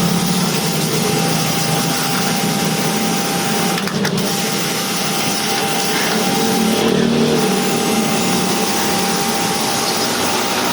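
Pressure washer running steadily, its motor and pump humming under the hiss of the water jet, with a brief break about four seconds in.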